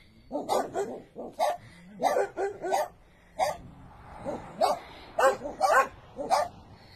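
Dogs barking repeatedly: short barks in quick clusters, with a brief lull about halfway through.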